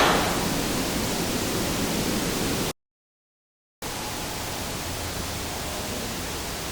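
Loud, steady hiss like static or boosted recording noise. A sharp hit with a short fading tail sounds right at the start, and the hiss cuts out completely for about a second near the middle before it resumes.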